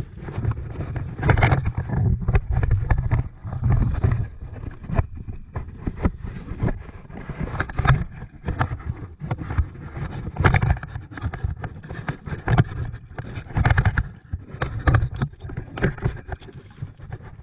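Plastic kayak on choppy sea water: irregular knocks, slaps and splashes against the hull, over an uneven low rumble.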